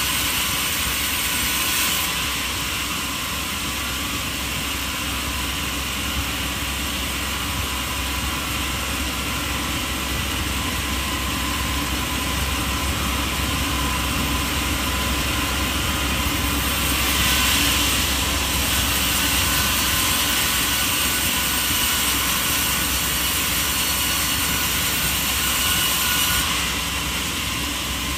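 Steady, continuous machine noise, like a motor running under load, with small changes in tone a couple of seconds in, around the middle and near the end.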